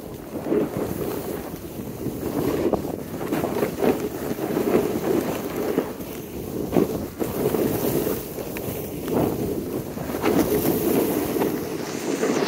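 Rushing wind noise on the microphone mixed with the hiss and scrape of sliding over snow while riding downhill, swelling and fading unevenly with no steady tone.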